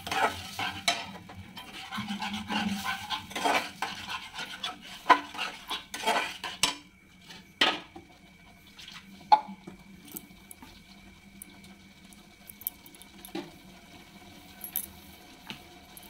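Metal spatula scraping and knocking against a metal kadai as thick moong dal is stirred and fried, busy for about the first seven seconds. After that come a couple of single clinks and only faint taps, with the spatula resting in the pan.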